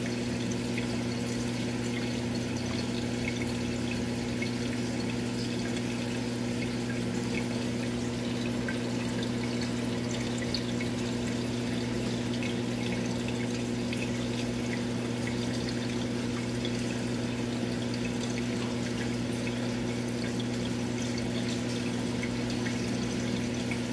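Steady hum of an aquarium pump with water bubbling and trickling, unchanging throughout.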